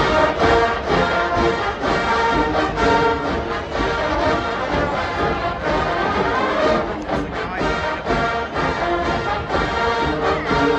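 A college marching band playing a brass-led tune over a steady drum beat.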